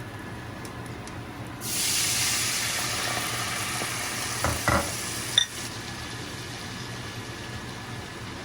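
Food hitting a hot pan and sizzling: a sudden loud sizzle about a second and a half in that slowly fades, with a couple of knocks of cookware, then cuts off abruptly after about four seconds.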